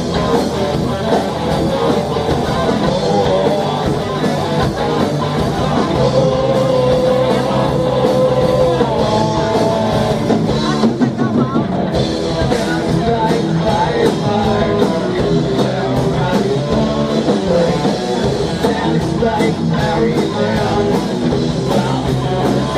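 A live rock band playing loudly: electric guitar and drum kit, with one note held for a few seconds near the middle.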